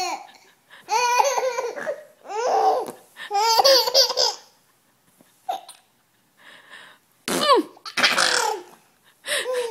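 Six-month-old baby laughing in several bursts of quick high laughs, with a mostly quiet gap of about three seconds in the middle.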